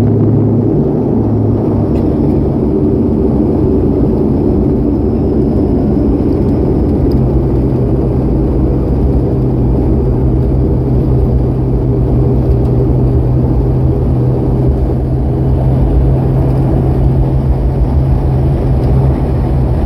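Cabin noise of an ATR 72 turboprop rolling out on the runway after landing: steady engine and propeller drone over runway rumble. A deeper steady hum grows stronger about seven seconds in.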